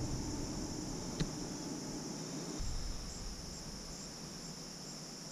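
A steady, high-pitched chorus of crickets, with one faint click about a second in.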